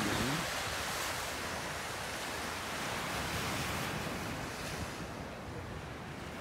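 Small ocean waves breaking and washing up a sandy beach: a steady rushing hiss of surf that thins out somewhat over the last couple of seconds.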